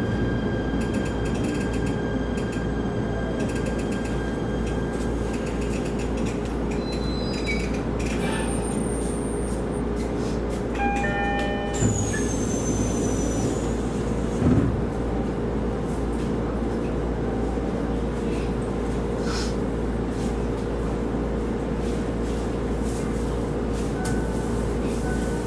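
Steady hum of a Shinano Railway SR1-series electric train standing at a station. A short run of stepped electronic tones comes about 11 seconds in, and a single low thump follows a few seconds later.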